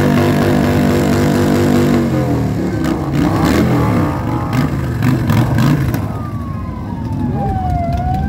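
Motorcycle engines running as a line of cruiser motorcycles rides past, with engine pitch rising and changing as bikes rev through. Near the end a siren tone glides down and starts back up.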